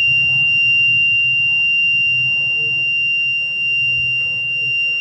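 Homemade fire alarm's buzzer sounding one steady, unbroken high-pitched tone.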